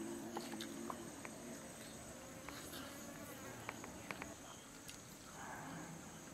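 Insects droning steadily at a high pitch, with a low buzz like a fly passing in the first second and a few faint ticks.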